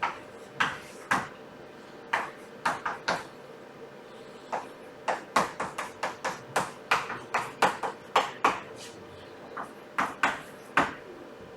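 Writing on a board: a string of about two dozen short, sharp taps and strokes in irregular clusters.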